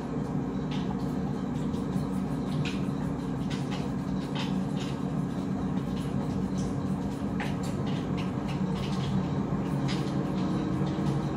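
Scattered light taps and clicks as caked powdered monk fruit sweetener is worked loose, over a steady low hum.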